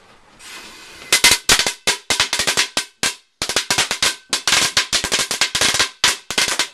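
Firecrackers going off: a short fizz, then from about a second in a rapid, irregular run of loud sharp cracks, several a second, with a brief break about three seconds in.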